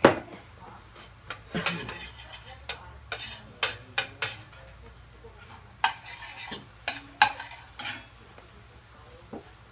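Metal utensils stirring, scraping and clinking against a pan and dishes, in three bunches of sharp clinks with quieter stretches between.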